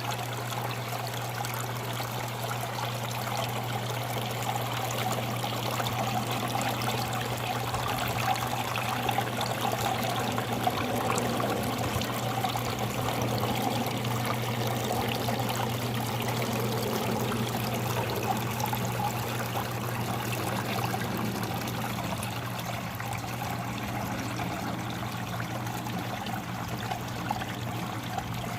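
Water trickling and splashing steadily down a small homemade waterfall fountain, with a steady low hum underneath.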